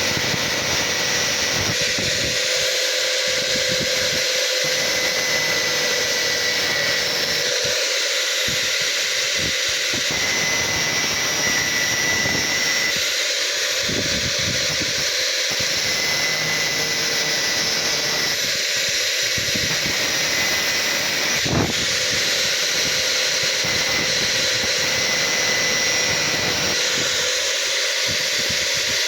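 Angle grinder running steadily with a high whine, its disc cutting into metal.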